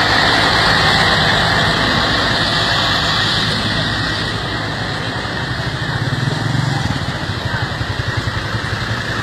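A large bus's diesel engine running loud and close, a steady low rumble with a pulsing engine beat that swells a little about six seconds in.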